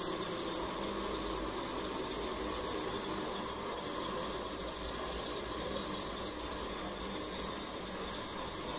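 Steady, even hiss with a low rumble underneath, unchanging throughout.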